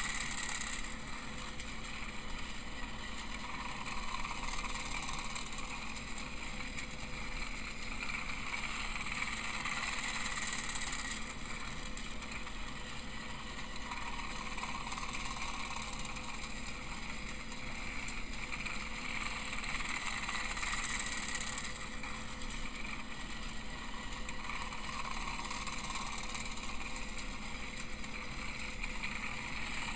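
Tomy Plarail Emily battery-powered toy train running on plastic track: a steady motor whir that grows louder and fainter in turn every five or six seconds.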